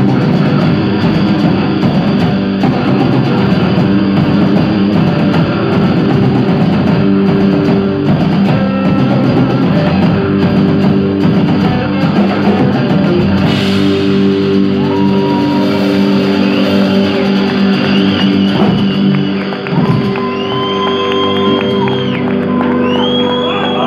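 Live rock band playing loud, with guitars, bass and drum kit. In the second half the playing thins out to held notes, with rising and falling whining tones from the guitars.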